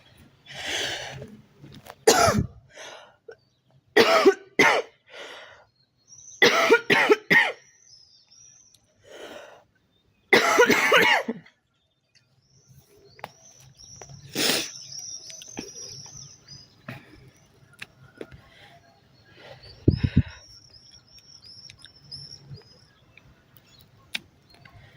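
A girl coughing: a string of single coughs and short bouts of two or three through the first twelve seconds, the longest about ten seconds in, then a single cough about fourteen seconds in and another about twenty seconds in.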